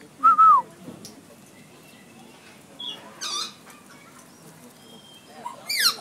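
Parrot calls: a short falling whistle, then a harsh call about three seconds later and a quick descending squawk near the end.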